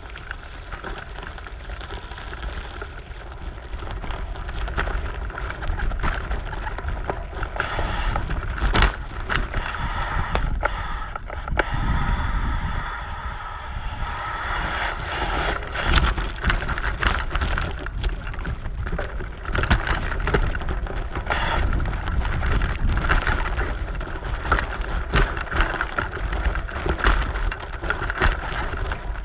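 Touring bicycle riding over a rough road, with a steady low rumble of wind on the microphone and frequent rattles and knocks throughout.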